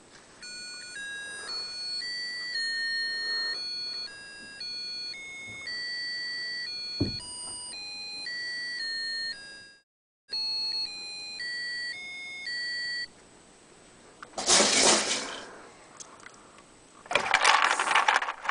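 A simple electronic melody of plain beeping notes, like a ringtone tune, with a short low thump about seven seconds in; it breaks off for a moment near ten seconds, resumes and stops. Then two loud bursts of noise follow, the second about two seconds after the first and longer.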